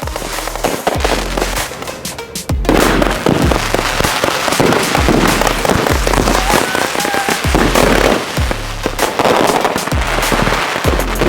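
Consumer fireworks going off in dense, rapid crackling bursts, louder from about two and a half seconds in, over background music with a steady bass beat.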